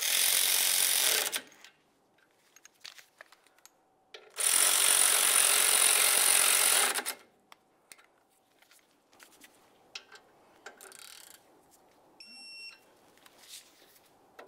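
A power tool runs down the brake caliper slider bolts in two bursts, the first about a second long, the second about three seconds. Near the end comes a short electronic beep, the signal of a digital torque wrench reaching its set torque of 20 foot-pounds.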